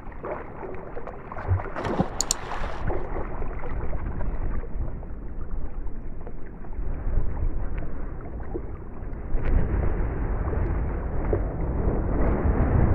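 Wind rumbling on the microphone over water sloshing around someone wading in shallow water, with a few faint clicks about two seconds in.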